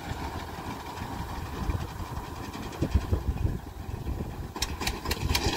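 Eicher 241 tractor's diesel engine running steadily as it drives a front-mounted reaper through standing wheat, with a few sharp clicks near the end.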